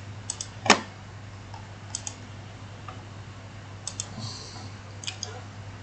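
Computer mouse clicking: a few scattered clicks, some in quick pairs, the loudest under a second in, over a steady low electrical hum.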